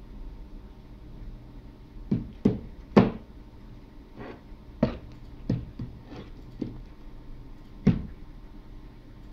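A series of knocks and clunks from an aluminium rear crankshaft seal housing as it is set down, shifted and turned over on a board on a desk; about seven knocks, the loudest about three seconds in and another near the end.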